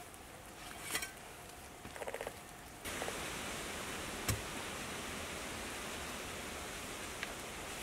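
A steady rushing hiss that starts suddenly about three seconds in and holds evenly, with one sharp knock a little after it starts. Before it, a few soft taps and scuffs.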